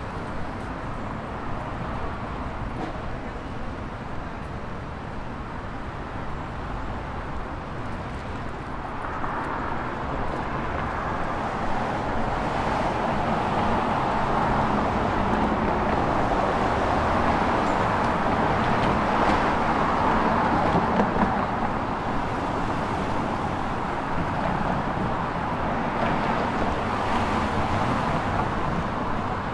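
Street traffic: a steady hum of cars passing on a city boulevard, growing louder about ten seconds in and easing back a little after about twenty seconds.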